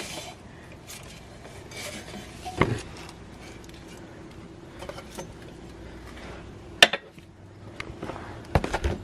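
Scattered light metallic clinks and knocks from tools or equipment being handled, with one sharp click about seven seconds in, over a faint steady hum.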